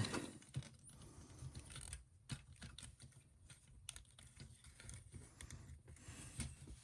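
Faint, scattered plastic clicks and taps as an action figure's parts are handled and positioned, a few isolated clicks spread through a low hum.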